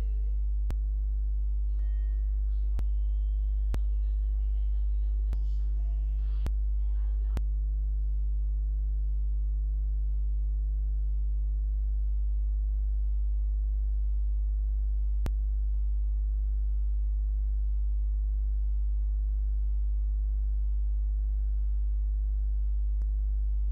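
Steady low electrical mains hum with a ladder of higher hum tones, unchanging throughout. A few faint clicks fall in the first several seconds, and one more comes about midway.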